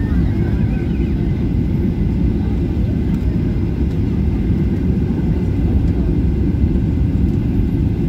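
Steady low rumble of a jet airliner's engines and airflow heard inside the passenger cabin during the approach for landing.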